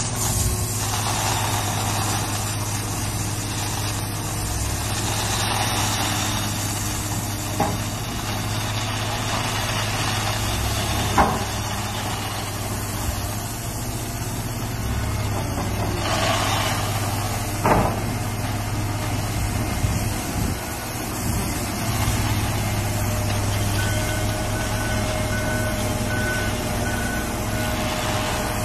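Heavy diesel engine of a wheel loader running steadily, with a few sharp knocks. A reversing alarm beeps repeatedly over the last few seconds.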